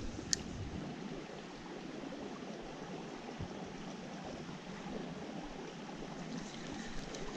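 Small mountain stream running steadily over rocks, with one brief sharp click about a third of a second in.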